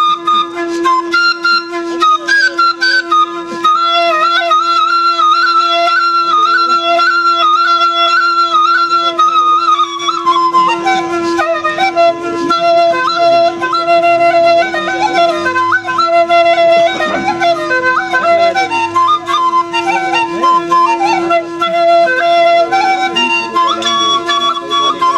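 Alghoza, the Sindhi pair of duct flutes, played solo without a break: one pipe holds a steady drone while the other plays an ornamented folk melody with quick trills and slides.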